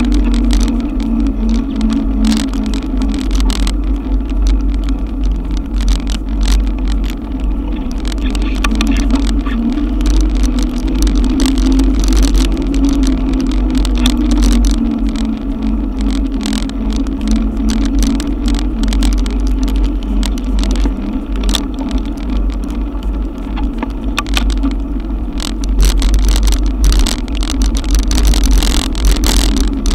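Riding a Haibike e-bike through a cloudburst, heard on a GoPro: wind rumbles on the microphone and a steady hum drifts slowly in pitch. Many small ticks run throughout, rain drops hitting the camera housing.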